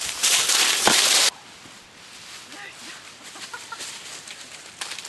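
Loud rustling crash of dry leaves as a German Shepherd charges past close by, cut off abruptly after about a second. Then quieter, with a few faint short chirping calls, and footsteps in dry leaves near the end.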